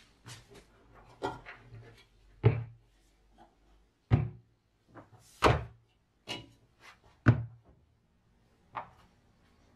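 Ryobi RLM140SP's painted steel mower deck knocking and thudding against a workbench as it is handled and turned over: a string of about eight separate knocks, the heaviest about two and a half, four, five and a half and seven seconds in.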